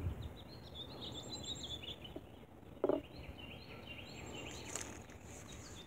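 Small birds chirping faintly in the background, many short quick chirps. A single short knock comes about three seconds in, and a few light clicks near the end.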